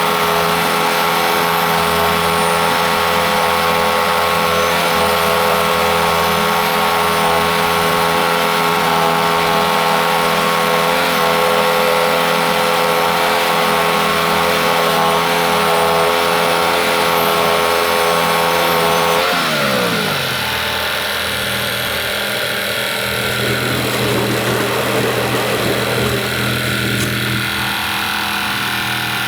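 Norwood MX34 portable bandsaw mill's gas engine running steadily at high speed. About two-thirds of the way through, the throttle is pulled back and it quickly winds down to a lower, quieter idle.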